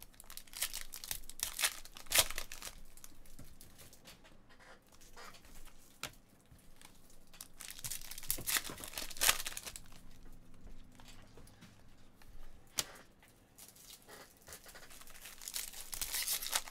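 Trading card pack wrappers being torn open and crinkled by hand. The rustling comes in three bursts: at the start, about eight seconds in, and near the end, with a few small ticks between.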